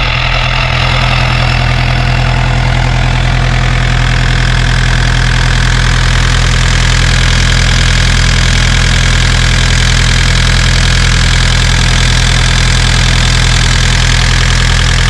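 Kubota KX-057-4 excavator's four-cylinder diesel engine running steadily at idle, freshly refilled with new oil.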